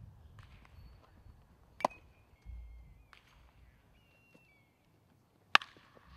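Two sharp cracks of a baseball being hit or caught: one about two seconds in, then near the end the loudest, the bat hitting the ball into play.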